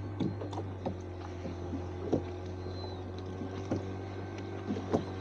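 Boat engine running with a steady low hum, with a few short knocks scattered through it.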